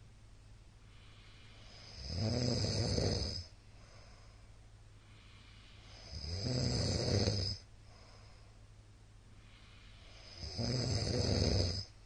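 A middle-aged man snoring loudly in his sleep: three long snores about four seconds apart, each lasting about a second and a half, with quiet stretches in between.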